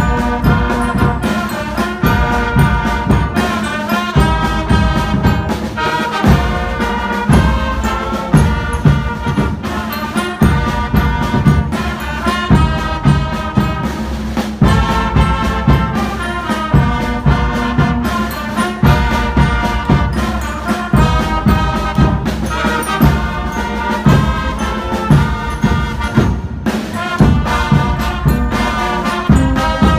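Music with horns over a steady beat.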